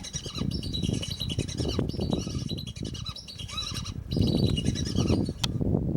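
Lesser whistling ducks calling: a steady run of short, high whistled chirps that thins out near the end. Under them runs a low rumbling noise that gets louder about four seconds in.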